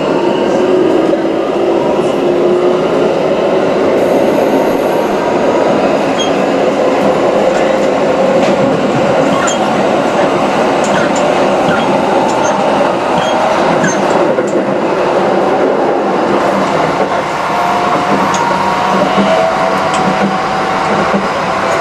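Cabin running sound of a Keikyu 1000 series electric train: steady wheel-on-rail rumble with the traction motors whining in several tones that slowly rise in pitch as the train gathers speed, plus scattered light clicks.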